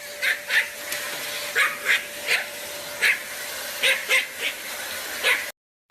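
Dog barking repeatedly in short, high, sharp yaps, about a dozen at uneven intervals, over a steady hiss. It cuts off abruptly near the end.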